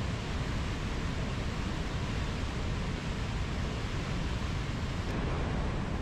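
Mountain river flowing over low rapids: a steady, even rushing of water.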